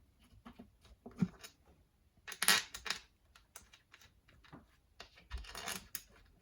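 Small clicks and taps of metal bolts and tools being handled while an engine's outer clutch cover is fitted, with a sharper knock about a second in and two short scraping rustles, about two and a half and five and a half seconds in.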